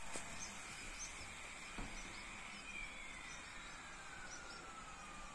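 Faint background ambience: short high chirps like small birds every half second or so, and a steady high tone that begins to fall slowly in pitch about halfway through, with two faint knocks in the first two seconds.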